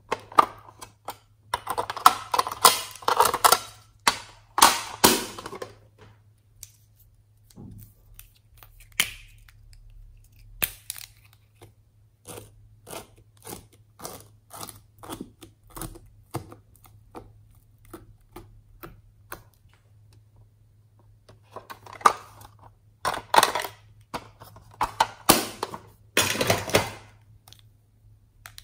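Plastic pencil case and felt-tip markers handled close up: bursts of crackling and cracking for the first few seconds and again near the end, with a run of small clicks and taps between.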